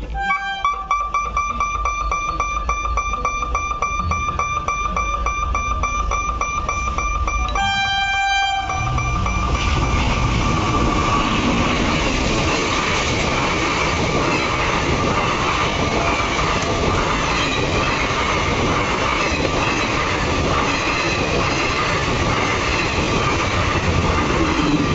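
Horn of a WAP-5 electric locomotive sounding one long steady note for about eight seconds, shifting to a lower note briefly near its end. Then a passenger train rushes past at speed, the coaches rumbling and their wheels running over the rails.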